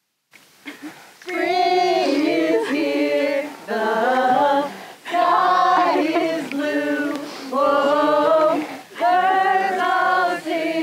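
A woman singing a slow song in phrases a second or two long, with short breaks between them; it comes in after a moment of total silence at the start.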